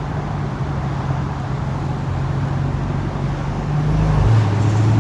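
Car engine running steadily with road noise while driving. About four seconds in, the engine note drops in pitch and grows louder.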